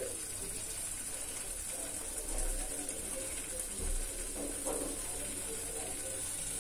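Chicken pieces sizzling faintly in a non-stick pan over a low gas flame, a steady soft hiss, with two soft low thumps about two and a half and four seconds in.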